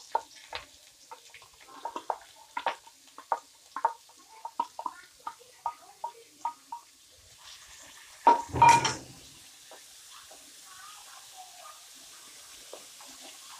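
Chopped shallots frying in hot coconut oil in a steel wok, crackling with irregular pops, about two a second. About eight seconds in, a spatula clatters against the wok as stirring starts, and a soft sizzle follows.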